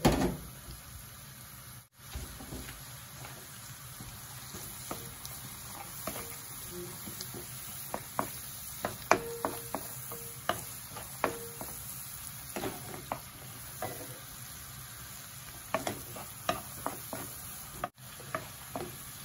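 Minced garlic sizzling in melted butter in a nonstick frying pan, stirred and scraped with a wooden spoon, with scattered sharp clicks over a steady sizzle. The garlic is frying until it turns golden.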